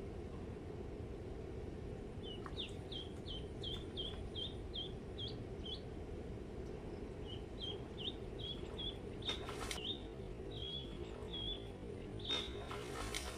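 A live duckling used as snakehead bait peeping in runs of short, high cheeps, about three a second, with a brief pause between two runs. A steady low background noise runs underneath, with a couple of faint knocks in the second half.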